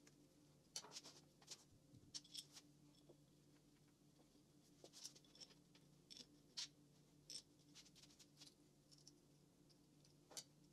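Faint, scattered clicks and light metal taps of small parts and screws being handled and fitted on a small antique gas engine during reassembly, over a low steady hum.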